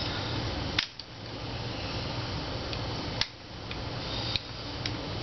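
A few sharp metal clicks of an AK-style rifle's safety selector lever being worked into the steel receiver by hand, over a steady background hiss.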